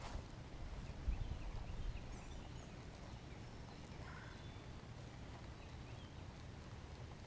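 Faint outdoor river ambience: a steady low rumble, a soft knock about a second in, and faint scattered bird calls.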